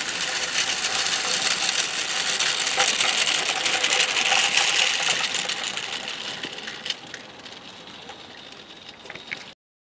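A 16mm-scale live-steam narrow-gauge locomotive and its wagons running past on garden-railway track, with steam hissing and wheels clattering on the rails. The sound builds, then fades as the train moves away, and cuts off abruptly near the end.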